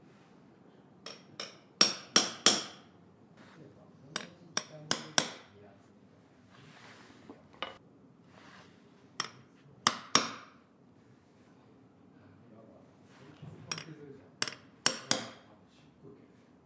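Hammer taps with a short metallic ring, in quick groups of three to five separated by pauses of a second or more.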